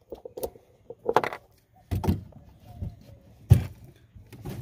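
Handling noise of small fishing gear: metallic clinks and jangles of a carabiner on a paracord leash, with scattered clicks and one heavier knock about three and a half seconds in.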